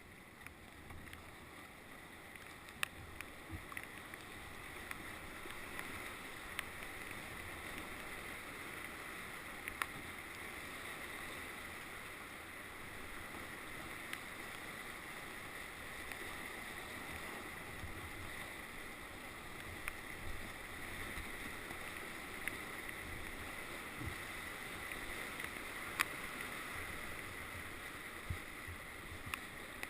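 Fast river water rushing steadily around a canoe, an even hiss of moving whitewater, with a few sharp clicks scattered through.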